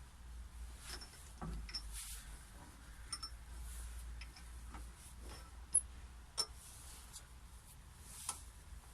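Scattered light clicks and taps of parts and tools being handled at a wood lathe, over a faint low hum. The sharpest clicks come about six seconds in and again near the end.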